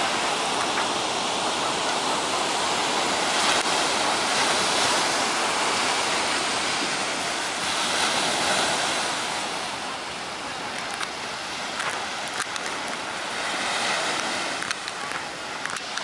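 Surf breaking and washing up a steep sandy beach: a steady rushing that swells and eases slowly, with some wind on the microphone.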